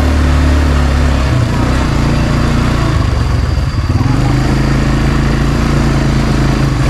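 ATV engine running under way, its pitch dropping a little over a second in and rising again about four seconds in as the throttle changes.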